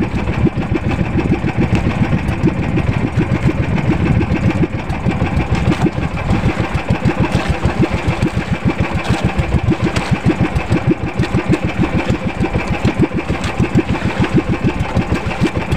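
A small fishing boat's engine running steadily with an even, rapid pulse.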